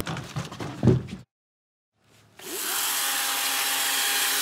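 A few knocks and scuffling, a second of silence, then a battery-powered electric chainsaw whirs up to speed about two and a half seconds in and runs steadily with a whine.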